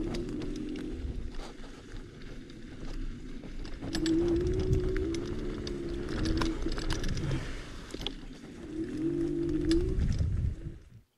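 KugooKirin G3 electric scooter ridden over a dirt forest trail: tyres and frame rattle and click over the rough ground, with a low wind rumble. A wavering motor whine rises and falls in stretches as the rider speeds up and slows. The sound cuts off abruptly near the end.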